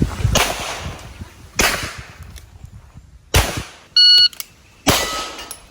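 A gun firing four single shots about a second and a half apart, each with a long echoing tail. A short electronic beep about four seconds in.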